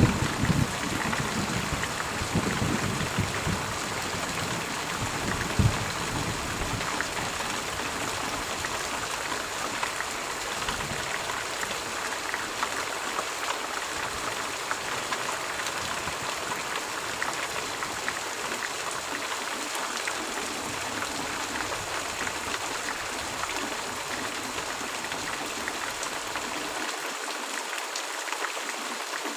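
Steady heavy rain falling, an even hiss. A low rumble of thunder dies away over the first few seconds, with one short low thud at about six seconds.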